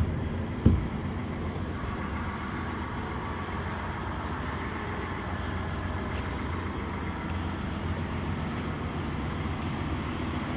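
Steady low rumble of an idling diesel truck engine, with two short knocks in the first second.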